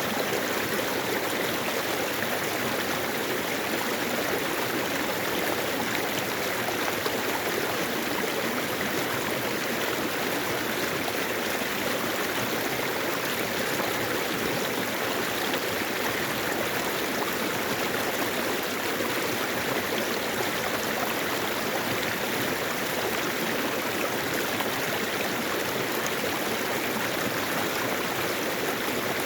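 Mountain valley stream flowing over rocks: a steady, even rush of water with no change throughout.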